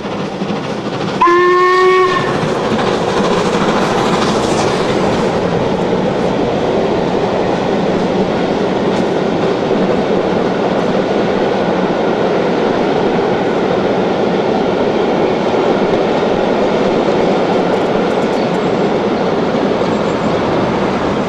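The whistle of LMS Jubilee class three-cylinder steam locomotive 45699 "Galatea" sounds once, for about a second, a little after the start. It is followed by the loud, steady rush and clatter of the train passing close by.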